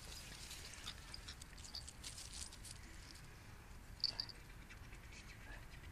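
Faint pattering and scuffing of a golden retriever puppy's paws on patio paving, with two short high squeaks about four seconds in.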